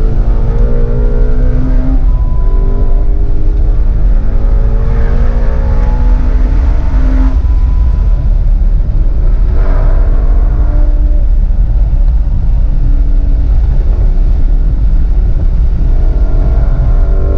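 Shelby GT350's 5.2-litre flat-plane-crank V8 running hard under acceleration, its pitch climbing and dropping several times as it is driven through the gears, over a heavy low rumble.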